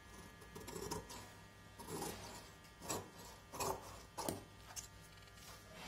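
Scissors cutting through lining cloth along a marked neckline: a series of short snips, irregularly spaced about a second or less apart.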